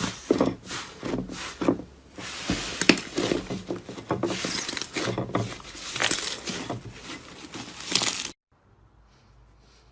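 Slime being worked by hand, with an irregular run of wet squishing, popping and crackling sounds that cuts off abruptly about eight seconds in.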